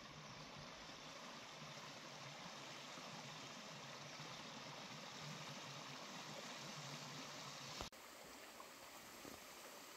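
Mountain stream running over rocks: a steady, faint rush of flowing water. A short click about eight seconds in, after which the water sound continues slightly changed.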